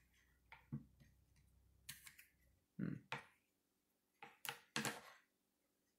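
Trading cards in plastic holders being handled against a wooden tabletop, giving a handful of short, sharp clicks and taps scattered through a quiet stretch.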